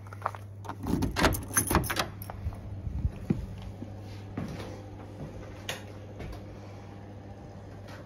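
A door being unlocked and opened: a quick cluster of clicks and knocks from the key, lock and lever handle about a second in, followed by a few lighter knocks, over a steady low hum.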